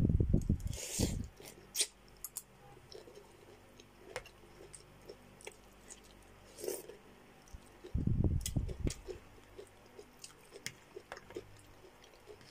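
Close-miked chewing and wet mouth sounds of a person eating chicken and cabbage soup from a spoon, with scattered small clicks and two louder bursts, about a second in and around eight seconds.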